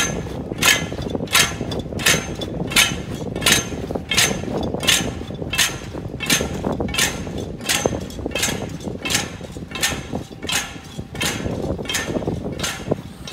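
Sharp knocks at a steady walking pace, about three every two seconds, keeping the step of the procession over a low shuffling noise.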